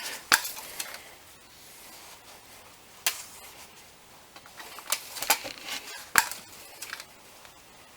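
Scattered light clicks and taps, about six in all, from handling the oil dipstick while checking the engine oil level.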